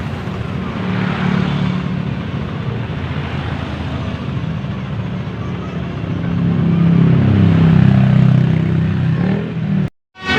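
Road vehicle engine running with road noise, swelling louder for a couple of seconds past the middle, then cutting off suddenly near the end.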